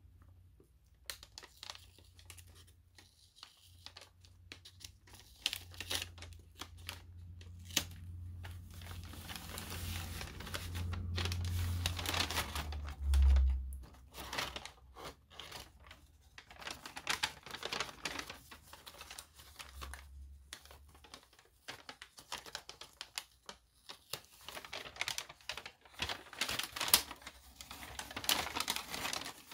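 Kraft paper wrapping rustling and crinkling as it is unfolded by hand, with tape being peeled off and irregular crackles and ticks throughout. A single dull low thump about halfway through is the loudest sound.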